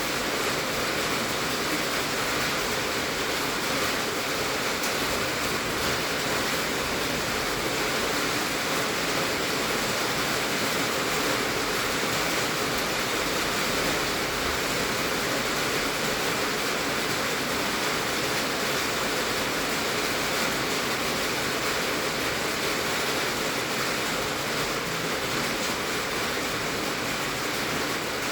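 Heavy rain drumming steadily on a tin roof, a dense even hiss of countless drops on the metal sheets.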